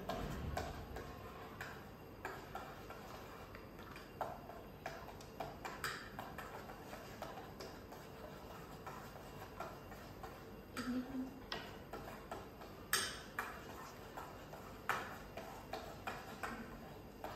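A utensil clicking and tapping against a stainless steel pot as it is stirred: irregular light taps, with a sharper knock about three-quarters of the way through.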